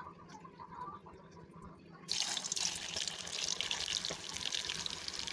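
Kitchen tap turned on about two seconds in, water running steadily into a sink.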